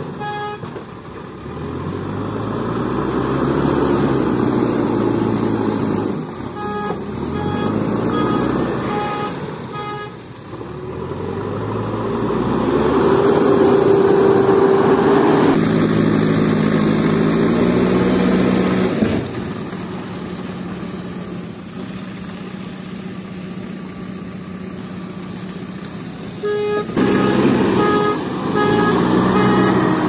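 JCB 3DX backhoe loader's diesel engine revving up and down again and again as the machine works, then settling to a steady, quieter idle for several seconds past the middle before revving again near the end. A beeper sounds in short, evenly spaced beeps early on and near the end, typical of the machine's reversing alarm.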